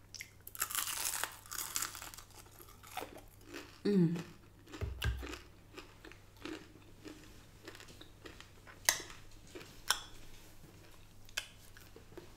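Close-miked eating: a crunchy bite and chewing of crispy chicken wings and curly fries, with a burst of crunching about half a second in, then softer wet chewing and small mouth clicks. A short vocal sound, falling in pitch, comes about four seconds in.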